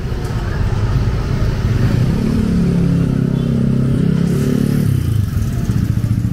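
A motor vehicle engine running close by, its pitch shifting up and down around the middle.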